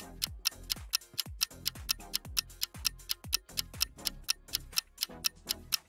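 Clock-style ticking sound effect marking a quiz countdown timer: fast, even ticks over background music with a low thumping beat.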